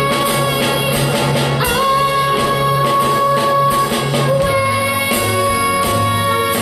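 A young girl's voice holding a long final note of a show tune over a pit band with bass and drums. The held note starts about two seconds in and continues to the end.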